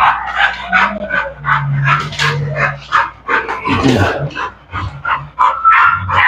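Pit bull barking and yipping excitedly in quick short calls, several a second.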